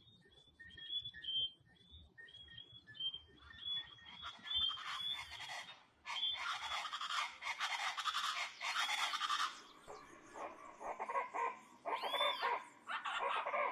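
Small frogs calling with short, repeated two-note chirps. About four seconds in, a chorus of rufous-vented chachalacas (guacharacas) takes over with loud, harsh, raspy calls in overlapping bouts.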